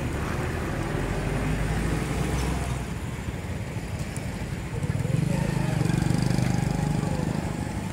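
Road traffic: a motor vehicle engine running steadily as a low hum, growing louder about five seconds in as a vehicle passes close.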